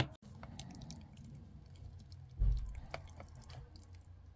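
A knife cutting through a soft baked gratin of béchamel, egg and melted cheese, making faint, wet squishing sounds, with a dull knock against the dish about two and a half seconds in and a few light clicks after it.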